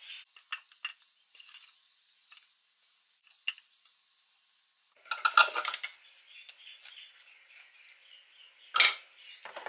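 A silicone spatula scraping chopped beetroot out of a plastic food processor bowl, with light clinks and knocks of the bowl and spatula against a glass dish. A louder burst of scraping comes about five seconds in, and another short scrape near the end.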